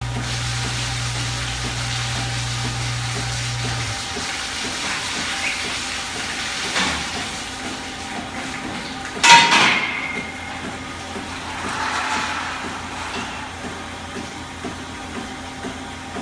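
Milking parlour machinery: a steady hiss from the running milking system and ventilation fans, with a low hum that stops about four seconds in. A little past the middle comes one loud clang with a short ringing tail.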